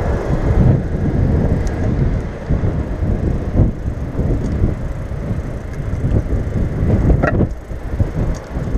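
Wind buffeting the microphone and road noise from a bicycle being ridden, a steady low rumble, with a short knock about seven seconds in.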